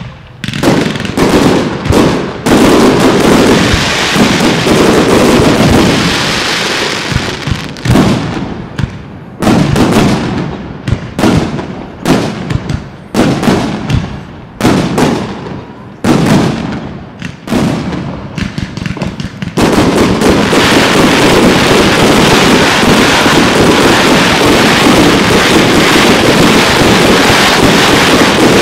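Aerial fireworks display: a rapid run of loud shell bursts, each bang echoing away, then, about two-thirds of the way through, a continuous dense barrage of bursts.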